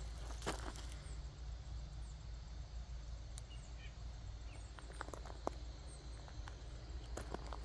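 Scattered footsteps on bark mulch and gravel, sparse at first and more frequent in the second half, over a steady low rumble, with a few faint chirps about halfway through.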